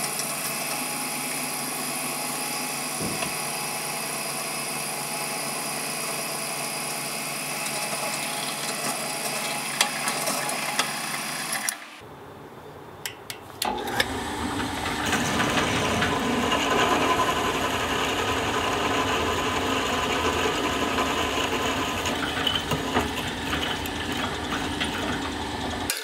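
Drill press motor running steadily while the bit drills into a metal part held in a drill press vise. About twelve seconds in the sound drops away for a second or two, then comes back louder and rougher.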